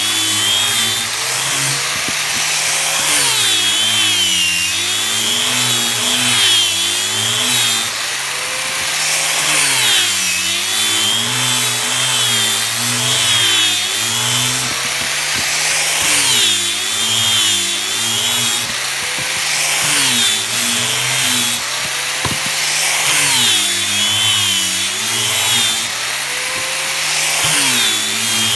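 Angle grinder fitted with a sanding disc, running without a break while sanding a wooden strip. The motor's pitch wavers up and down every few seconds as the disc is pressed and moved along the wood.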